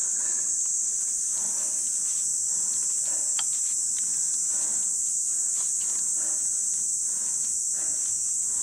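Insects keeping up a steady high-pitched drone, with a few faint scuffs and clicks of handling on a dirt slope.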